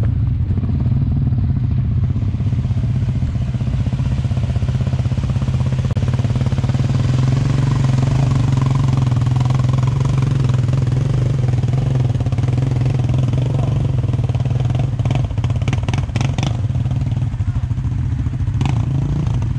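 ATV engine running steadily while riding. A quick run of knocks or rattles comes about fifteen seconds in, and another near the end.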